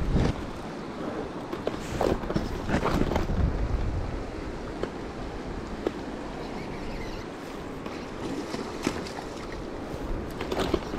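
Fast, shallow river rushing steadily over rocks, with wind on the microphone and a few short knocks close by.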